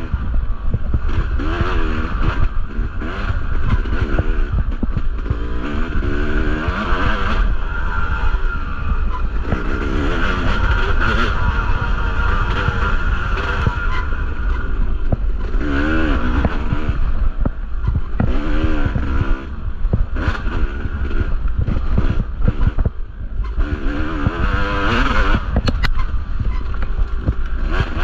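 Yamaha two-stroke dirt bike engine under race riding, its revs rising and falling over and over as the throttle is worked, with a couple of brief drops in level where the throttle closes. A heavy low rumble runs underneath.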